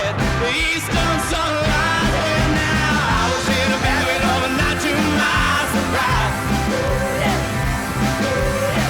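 Rock music with a sung vocal and a steady bass and drum beat.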